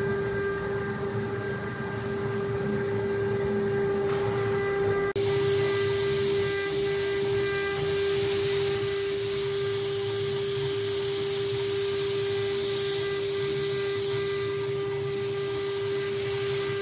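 CNC router's water-cooled spindle running with a steady whine. About five seconds in, a loud rushing hiss of the bit cutting into the board sets in over it and continues.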